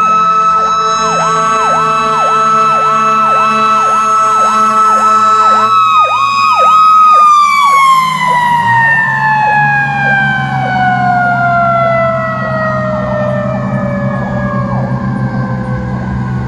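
Federal Q2B mechanical siren held at a steady high pitch, then winding down in one long falling tone from about six seconds in, while an electronic siren yelps rapidly over it and slows after about six seconds. An engine runs underneath.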